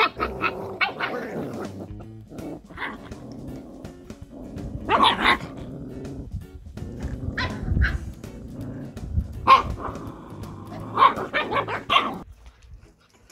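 Husky puppies growling and yapping at each other in short bursts as they squabble, food-guarding over carrots.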